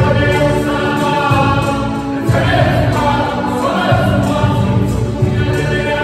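Group of voices singing a Samoan song together, choir-like, over a strong low accompaniment.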